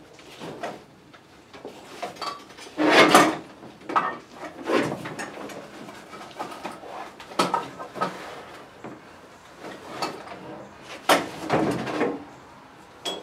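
Someone rummaging, with irregular knocks and clatter of hard objects being picked up, moved and set down. The loudest clatter comes about three seconds in.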